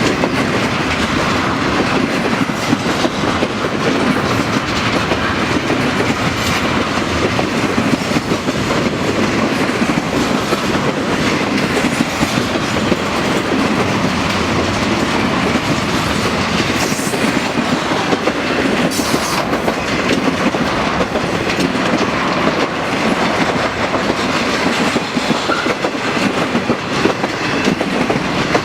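Intermodal freight train's cars rolling past: a steady, loud rumble of steel wheels on rail with a scattered clickety-clack of wheels crossing rail joints.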